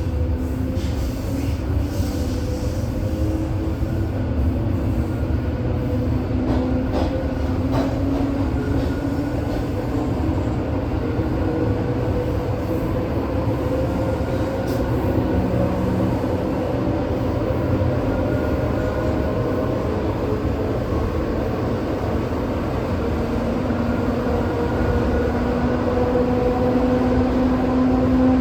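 ED4M electric multiple unit running along the line: a steady rumble of wheels on track under a motor whine that slowly rises in pitch toward the end.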